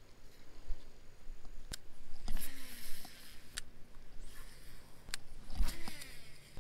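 Scattered sharp clicks and handling noise from a baitcasting rod and reel being worked, with two brief rushes of hiss.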